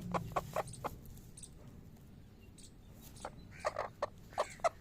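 Chicken clucking in a quick run of short notes, about four a second, that trails off about a second in; a few more clucks come near the end.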